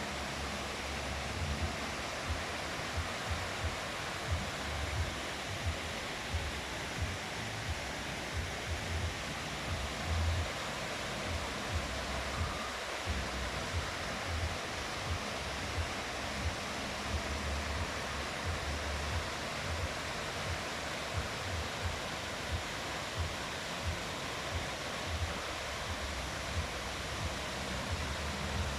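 River water rushing steadily, with frequent short low bumps throughout.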